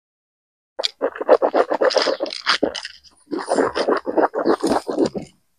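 Close handling noise: rapid rustling and scraping in two runs of about two seconds each, with a short break near the middle.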